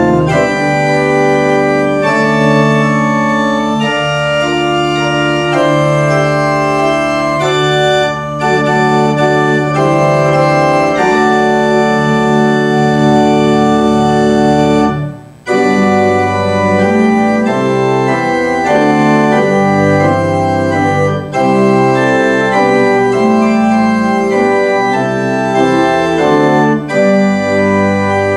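Pipe organ playing a postlude in full, sustained chords. There is a brief break about halfway through before the music resumes.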